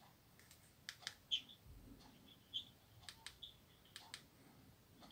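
Faint clicks of a Nokia candybar phone's keypad buttons being pressed, several times and often in pairs, with short high beeps from the phone between them.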